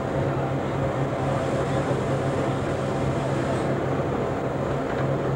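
Steady running noise inside a moving 800 mm gauge rack-railway railcar: an even rumble with a constant low drone.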